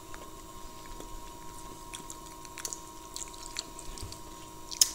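People chewing and crunching pieces of a chocolate-coated wafer bar close to the microphone: scattered faint crackles, with one sharp click just before the end. A faint steady tone hums underneath.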